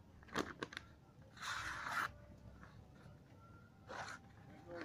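High-speed-steel knife blade slicing through a sheet of paper in a test of its edge's sharpness. A few light ticks come first, then a rasping cut of about half a second, and a shorter one near the end.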